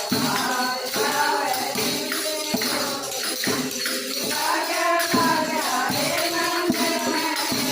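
Haryanvi devotional bhajan music: a tambourine-like jingle keeps a steady shimmer while a melody bends and slides in pitch, over scattered drum strikes.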